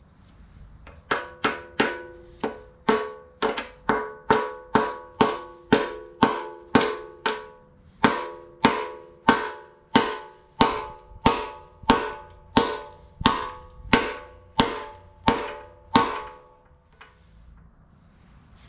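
A hammer strikes a steel part about thirty times in a steady rhythm, quicker at first and then slowing a little, and each blow rings like a bell. The blows stop a couple of seconds before the end. This is plausibly a pin or bushing being driven into the excavator's undercarriage.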